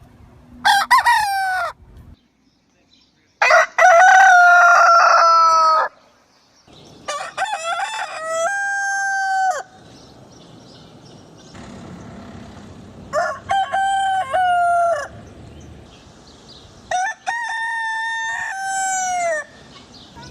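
Roosters crowing five times in a row, each crow ending in a long held note that falls off at the end. The second crow, about three and a half seconds in, is the loudest and longest.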